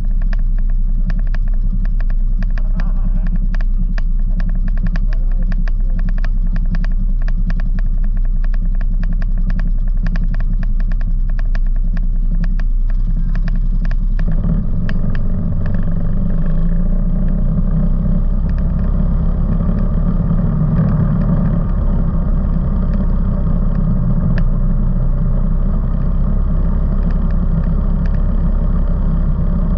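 ATV engines idling with a rapid ticking, then about halfway through the engines pick up and run steadily as the quads pull away and ride on.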